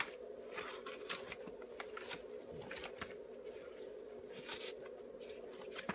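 Paper pages of a picture book being handled and turned: a scattered run of short papery rustles and flaps over a faint steady hum.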